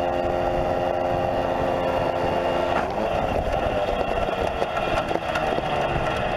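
Homebuilt coaxial helicopter's engine and rotors running on a tether with a steady pitched drone. About three seconds in the steady pitch breaks up and drops, and a rougher, rattling clatter follows.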